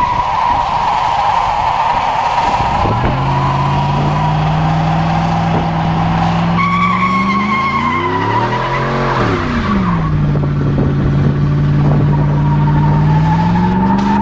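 A car engine running with its tires squealing in a high, wavering screech. The engine revs up and back down about halfway through, and starts climbing again near the end.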